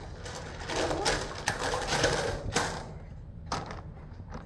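Smooth hot sauna stones being handled, giving a few sharp clicks and knocks with a rustling noise in the first half or so.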